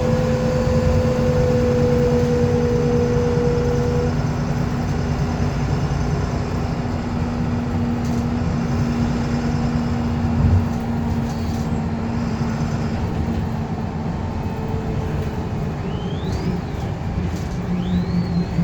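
VDL SB200 Wright Commander single-deck bus under way: engine and road rumble with a steady whirring tone running over them. A higher tone fades out a few seconds in, and there is a single thump about ten seconds in.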